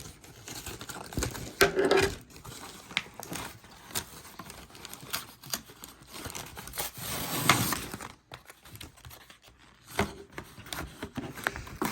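Post-it note pads and their packaging being handled: on-and-off crinkling and rustling, with a louder rustle about seven seconds in.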